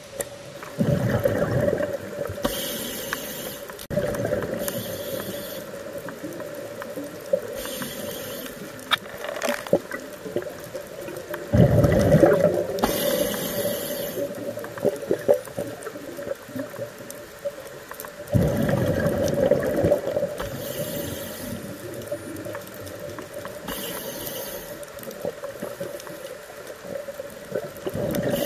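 Scuba diver breathing through an open-circuit regulator underwater: short hissing inhalations every few seconds, and three longer rushes of exhaled bubbles, about a second in, around twelve seconds in and around eighteen seconds in.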